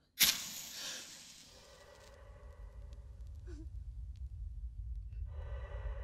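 A sudden loud hiss-like hit out of near silence, fading over about a second and a half. It gives way to a low rumbling drone that slowly builds, with held tones joining near the end.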